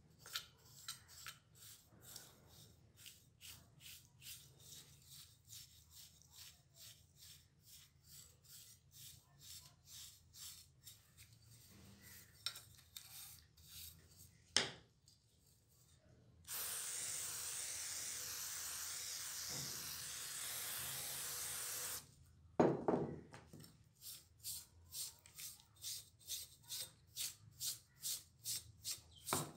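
A small hand brush scrubbing the rusty metal shell of a security camera, about two to three scraping strokes a second. In the middle the brushing stops for a steady hiss of about five seconds, an aerosol spray such as WD-40, followed by a couple of knocks before the scrubbing resumes.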